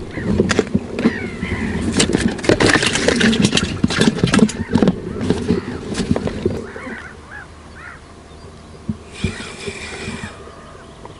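Clicks, knocks and scrapes from handling a freshly caught perch and tackle in an inflatable boat. These die down after about six seconds, and then comes a brief hiss about nine seconds in as the spinning rod is cast.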